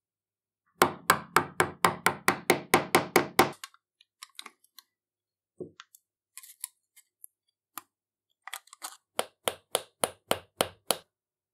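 A hammer knocking in two quick runs: about a dozen sharp blows, roughly four a second, then after a pause with faint crinkling from aluminium foil tape, about eight lighter taps driving a white plug into the end of the steel rivet hammer's barrel.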